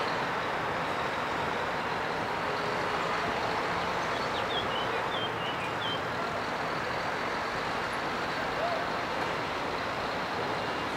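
Steady noise of lorry engines and harbour traffic as trucks drive off a roll-on/roll-off ferry, with a few short high chirps about halfway through.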